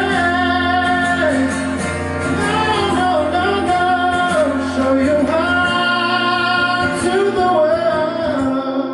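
Live acoustic song: drawn-out sung vocal lines over acoustic guitar, with a held low note under the first half that drops out about two-thirds of the way through.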